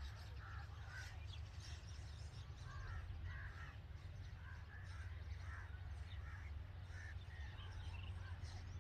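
Birds calling with many short chirps, faint over a steady low hum.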